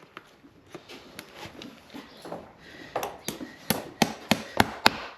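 Sharp, quick knocks from a farrier's tool working on a horse's hoof. They are faint and scattered at first, then about seven loud strikes come roughly a third of a second apart in the second half.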